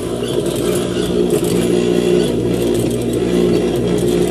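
Sewing machine running as it stitches fabric: a steady motor hum that dips briefly twice.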